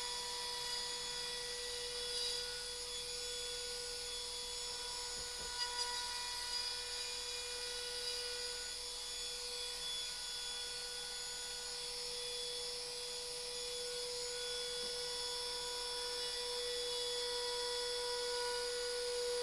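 Trim router with a 1/4-inch upcut spiral bit running at speed while it routes a slot along the edge of a wooden panel: a steady high motor whine. A couple of short knocks come about five to six seconds in.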